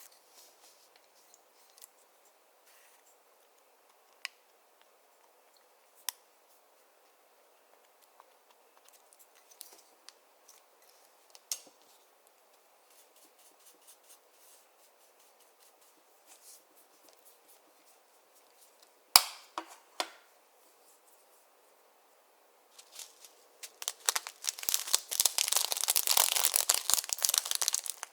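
Clear slime being handled and mixed, giving scattered sticky clicks and pops with a sharp snap about two-thirds of the way in, then dense crackling from about five seconds before the end as the slime is worked quickly.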